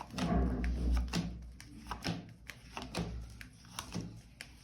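Tarot cards being handled and laid out on a table: a string of short, sharp taps about two a second, with a low thud in the first second or so.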